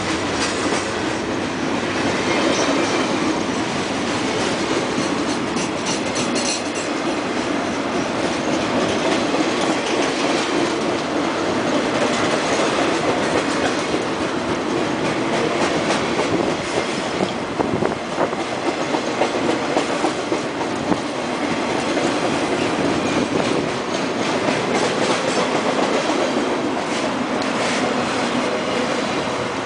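Freight train flatcars loaded with maintenance-of-way machines rolling steadily past, their steel wheels clattering on the rails, with a run of sharper clicks about two-thirds of the way through.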